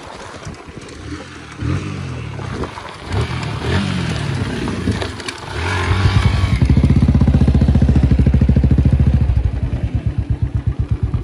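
Motorcycle engines close by, revving with pitch rising and falling over the first half, then a loud, steady low engine note that takes on an even throb near the end.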